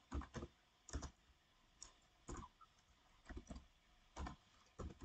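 Computer keyboard keys tapped one at a time at a slow, uneven pace, about ten faint keystrokes as a word is typed.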